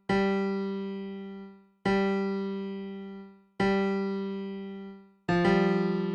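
Music: a keyboard with an electric-piano tone playing single low notes, each struck and left to ring and fade, about one every second and three quarters. The fourth, about five seconds in, is fuller and slightly wavering.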